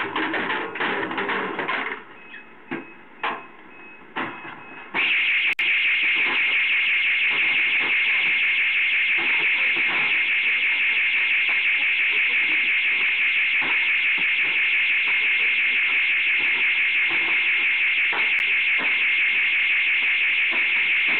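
An intruder alarm sounder switches on abruptly about five seconds in and keeps sounding a loud, steady, high-pitched electronic tone with a fast flutter. Before it, scattered knocks and rattling from things being handled.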